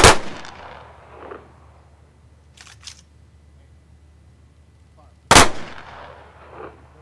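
Firing party's rifle volley salute: two sharp volleys, each fired in near-unison, about five seconds apart, each followed by a short echo. A couple of light clicks fall between the two volleys.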